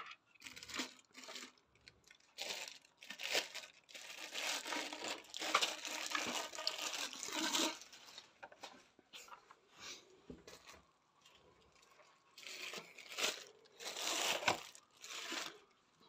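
Plastic packaging crinkling and rustling in irregular bursts as vacuum cleaner parts and attachments are handled. It is densest from about four to eight seconds in, and again for a few seconds near the end.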